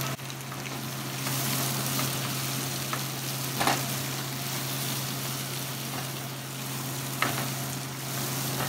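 Zucchini, peppers, eggplant and onion sizzling in hot oil in a frying pan while a silicone spatula stirs them, with a couple of sharp knocks of the spatula against the pan. A steady low hum runs underneath.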